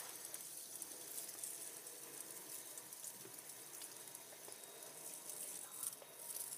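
Faint, steady whirring hiss of a hand-held fidget spinner's centre ball bearing spinning freely.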